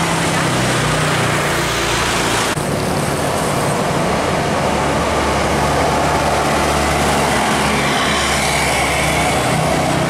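Road traffic passing close by: bus and car engines running under a steady rush of tyre and road noise. The sound changes abruptly about two and a half seconds in.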